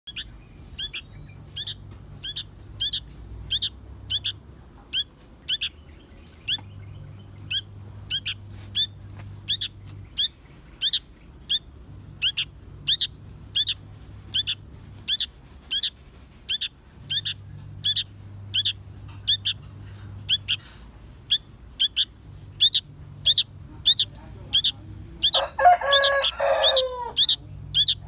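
Fledgling sooty-headed bulbul giving short, high chirps over and over, about two a second: the steady begging calls of a young bulbul. Near the end a lower, harsher chattering call joins in for about two seconds.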